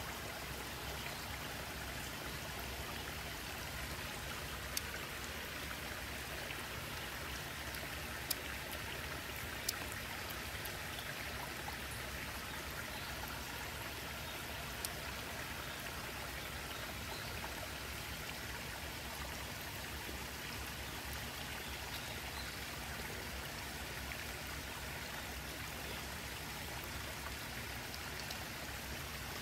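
Steady rush of running water, like a stream or rainwater runoff, with a few brief sharp ticks in the first half.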